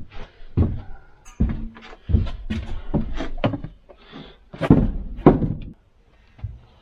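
A string of knocks and thuds as a narrowboat's steel hatch is pushed open and someone climbs out onto the steel roof, feet thumping on the metal. The loudest thuds come about five seconds in.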